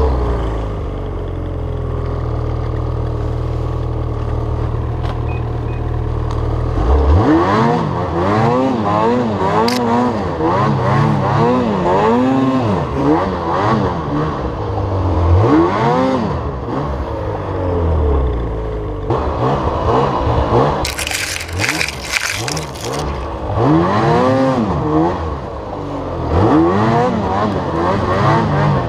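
Lynx Boondocker 3700RE's 800R E-TEC two-stroke twin running at a steady pitch for the first several seconds, then revved up and down again and again as the throttle is worked through deep snow. About two-thirds through there is a short burst of rushing, hissing noise.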